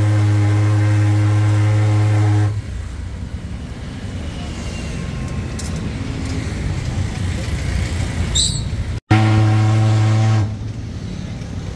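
A loud, steady machine hum that cuts off about two and a half seconds in and gives way to a rumbling noise like road traffic. After a sudden break near the nine-second mark, the hum returns for about a second and a half, then the rumble again.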